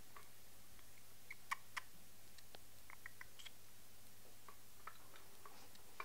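Indian ringnecks, conures and a galah cracking and husking seed with their beaks: faint, irregular little clicks and ticks, a few louder ones about a second and a half in, over a faint steady low hum.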